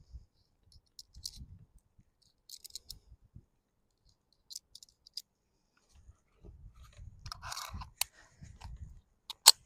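Small metallic clicks and rattles from handling a Smith & Wesson 22A-1 .22 pistol and its ammunition, ending with a sharper click near the end, with wind buffeting the microphone in low rumbling gusts.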